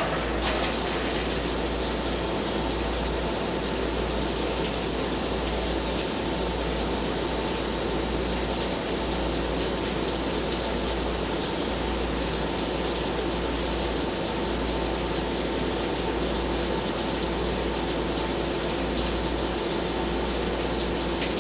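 Flood coolant gushing and splashing over a spinning steel workpiece on a lathe as a carbide-shank boring bar cuts a bore, with a steady machine hum underneath.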